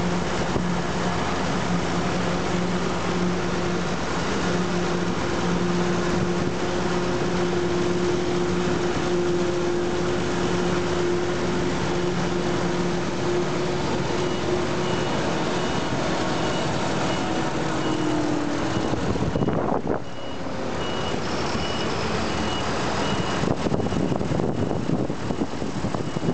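Forage harvester and tractor engines running steadily under load while maize is chopped and blown into the trailer. About two-thirds through, the engine tone sags lower and the noise briefly thins. A faint high repeating beep sounds through the second half.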